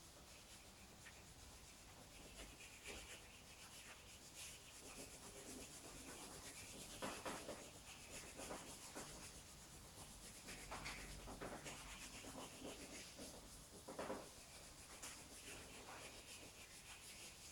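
Faint scratching and rubbing of a charcoal or graphite drawing stick on paper pinned to a flipchart board, scribbling in quick looping strokes, with a few harder strokes about seven, eleven and fourteen seconds in.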